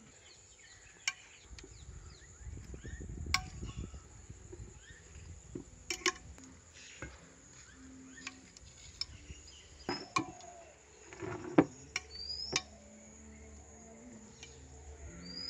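Steady high drone of insects, with scattered clicks and knocks of glassware and watermelon chunks being handled, the loudest a dull knock a little past halfway. A few short rising bird chirps come in the second half.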